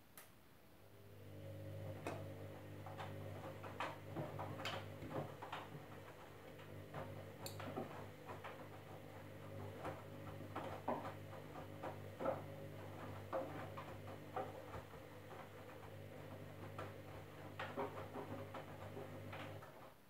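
Candy front-loading washing machine turning its drum for a wash tumble: the motor starts up with a steady low hum, laundry knocks and clicks around inside the drum, and the motor stops suddenly near the end.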